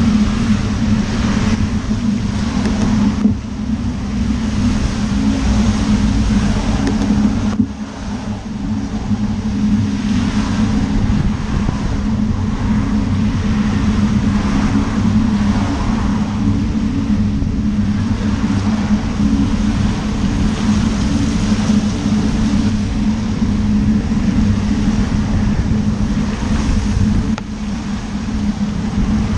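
Road traffic on a wet road: car tyres hissing on wet tarmac as vehicles pass close by, over a constant low hum, with the level dipping briefly a few times.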